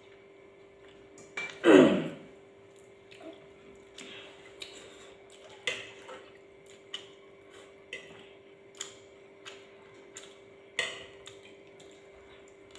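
Light clicks and taps of spoons, chopsticks and bowls at a meal table, scattered irregularly, over a steady low hum. About two seconds in comes a single louder, short sound falling in pitch.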